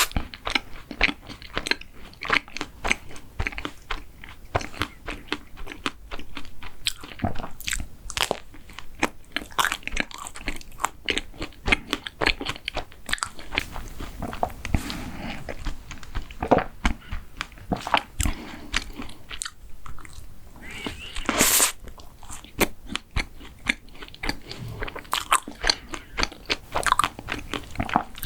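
A person chewing and crunching food close to the microphone: a dense, irregular run of crisp bites and mouth clicks, with one louder crunch about three-quarters of the way through.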